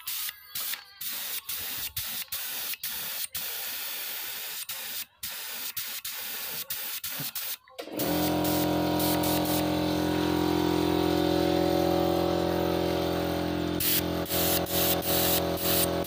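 Compressed-air spray gun hissing in quick on-off bursts as it sprays finish onto wooden chairs. About halfway through, an air compressor motor starts and runs with a steady hum under the hiss. Short spray bursts return near the end.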